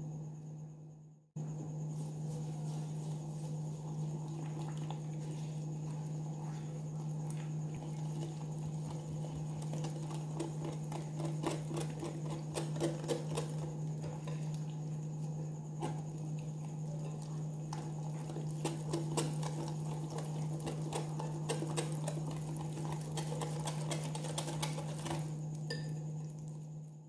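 Batter being stirred by hand in a glass bowl: light clicks and scraping of the utensil against the glass, busiest in the second half, over a steady low hum.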